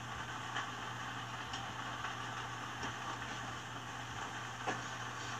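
Quiet room tone: a steady low hum under a faint hiss, with a few faint short sounds, the clearest a little before the end.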